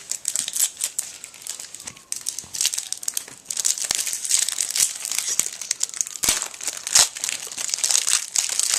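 Crinkling and tearing of a trading-card pack wrapper as a pack is ripped open and handled, with two sharp snaps late on.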